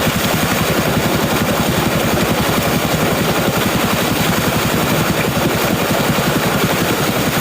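Single-cylinder 'Peter' diesel engine running a tubewell pump, its exhaust giving a rapid, even beat.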